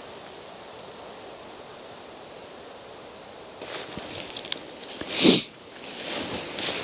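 A steady rushing outdoor background noise, then from about halfway irregular rustling and brushing sounds, the loudest a little after five seconds.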